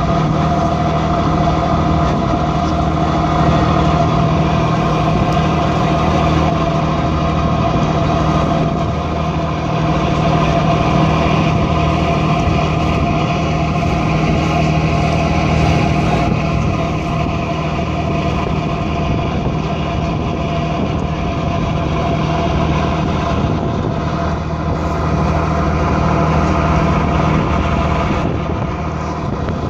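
A passenger boat's engine running with a steady drone, over a steady rushing of wind and water.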